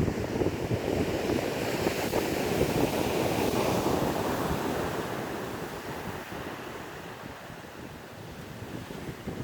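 Ocean surf breaking on the shore with wind buffeting the microphone; the wash swells about two seconds in and slowly fades, building again near the end.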